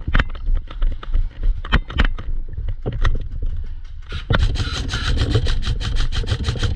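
Airsoft electric rifle (AEG) firing. Scattered sharp cracks come in the first few seconds, then about four seconds in a rapid full-auto string of evenly spaced shots starts.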